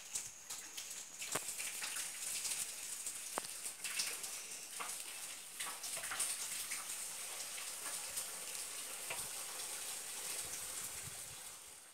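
Quiet outdoor background: a steady high hiss with faint, scattered light ticks and taps.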